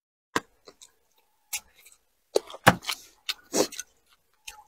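Close-up eating sounds: chewing fried fish and shrimp, with a string of short, sharp clicks and smacks at irregular moments, a few bunched together in the middle.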